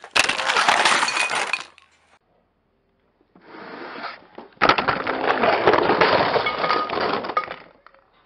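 A makeshift camera and ring-light stand and makeup toppling over and breaking: a loud clattering crash lasting about a second and a half, then after a short pause a longer stretch of clattering and knocking, loudest for about three seconds from halfway through.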